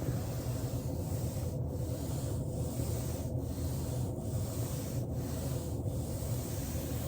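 Foam roller rolling back and forth under a person's body: a steady rubbing that dips briefly at an even pace, a little more than once a second.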